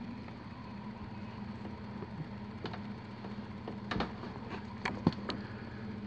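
A steady low hum, with a few light clicks and knocks scattered through the second half.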